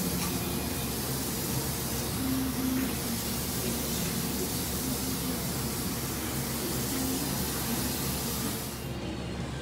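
Steady hissing kitchen noise inside a soba shop, with a faint low hum under it; the hiss drops away abruptly near the end.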